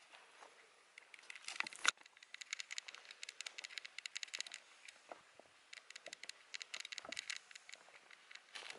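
Footsteps on a path of loose flat stone slabs strewn with dry leaves: irregular crunching and clicking, with a sharp click about two seconds in and a few dull thuds of footfalls later on.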